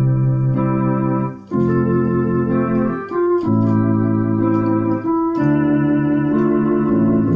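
Electronic keyboard played with an organ sound: a slow tune over held chords that change about every one and a half to two seconds, the notes sustaining without dying away.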